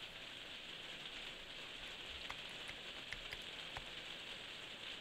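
Steady, even hiss like light rain, with a few faint clicks between about two and four seconds in.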